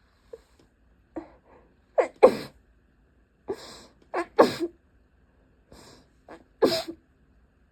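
A person in a sneezing fit: three sneezes about two seconds apart, each one preceded by a quick catching inhale, the first sneeze the loudest.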